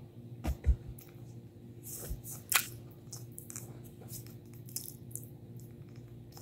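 Puppy gnawing a hard bully stick: a scatter of short, sharp crunching and clicking bites, preceded by two soft thumps about half a second in.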